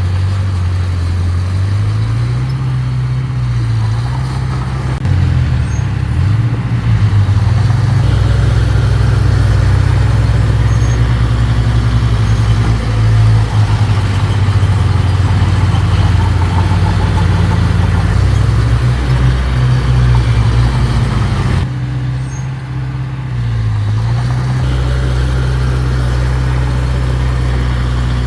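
Heavy construction machine's diesel engine running under changing load, its pitch rising and dipping as it is worked. It grows louder a few seconds in and eases off briefly about three-quarters of the way through.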